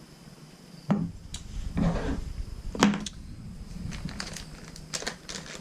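A tree-climbing saddle and its hardware being handled: a few sharp knocks and clinks in the first three seconds, then lighter ticks toward the end.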